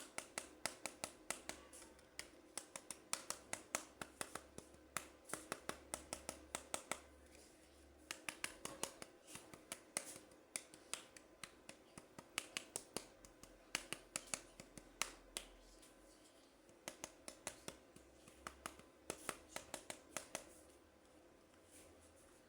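Runs of quick, sharp clicks from hands handling toys and their packaging, several a second, with short pauses between the runs.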